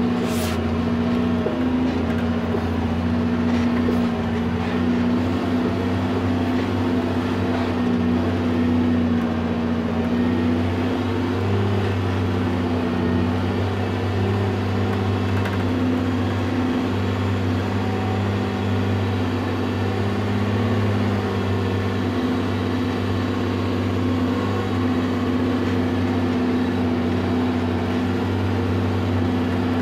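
Cat 735 articulated dump truck's diesel engine running steadily, heard from inside the cab as the truck drives down a steep dirt ramp; one short click near the start.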